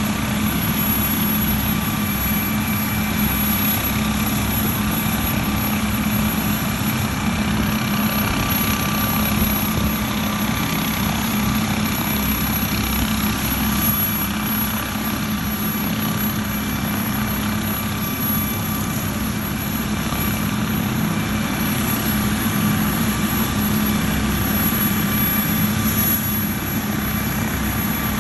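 An air ambulance helicopter idling on the ground: a steady engine hum with a constant whine that holds level throughout.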